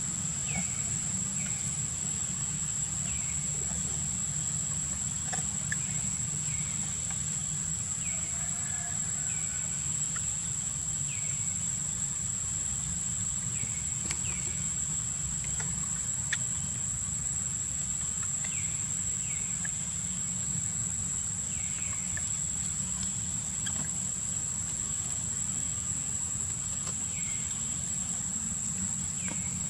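A steady high-pitched drone of insects, with short falling chirps every second or two and a low rumble underneath.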